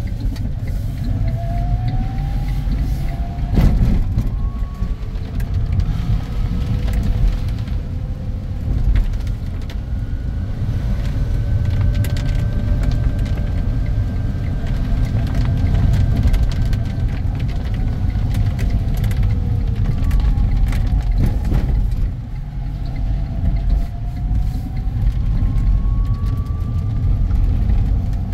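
Inside a moving car's cabin on rain-soaked roads: a steady low rumble of engine and tyres on wet tarmac, with faint tones rising and falling as the speed changes. Two brief knocks come about 4 seconds and 21 seconds in.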